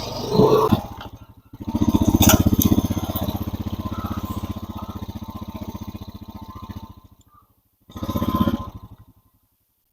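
Small petrol engine running with an even pulsing beat, loudest about a second and a half in and slowly fading away, then a short loud spell near the end before it cuts off suddenly.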